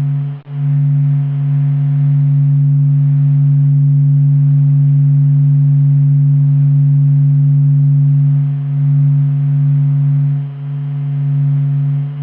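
The Sun's oscillations recorded by NASA and ESA and converted to sound: a deep, low, steady hum with a fainter overtone above it. It drops out briefly about half a second in and wavers slightly now and then.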